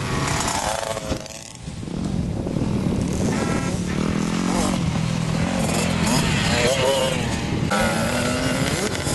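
Dirt bike engines revving on a motocross track, the pitch rising and falling with the throttle. The sound drops away briefly about a second and a half in, then the engines run steadier before revving hard again.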